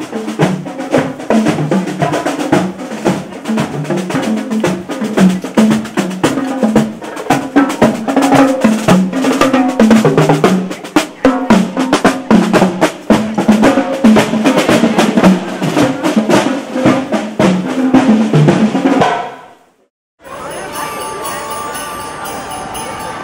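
Marching band of drums and brass playing a march: rapid snare drum strokes and rolls with bass drum beats under a brass melody, fading out after about nineteen seconds. After a brief gap, quieter Christmas music with jingle bells begins near the end.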